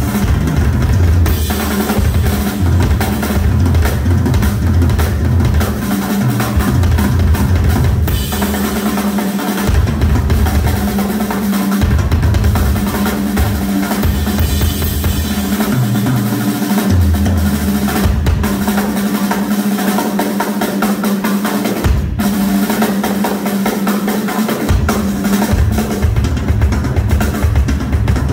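Live drum solo on a metal-shelled Ludwig drum kit: fast rolls around the snare and toms, with bass drum strokes that come in stretches and drop out for a few seconds at a time.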